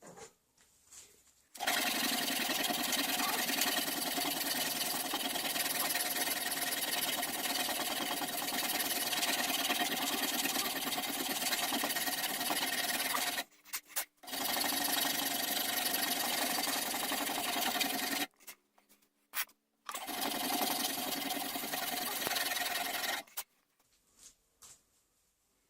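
A small electric power tool runs steadily with a constant whine. It runs for about twelve seconds, stops for a moment, runs for about four seconds more, then after a short pause runs for about three seconds and stops.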